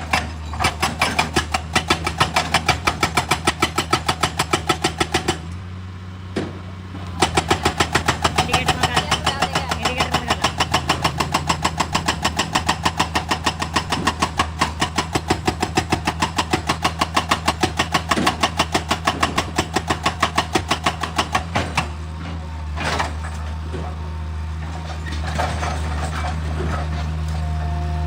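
Excavator's diesel engine running with a rapid, even knocking, about four to five knocks a second. The knocking stops briefly about five seconds in, then fades after about twenty seconds while the engine keeps running.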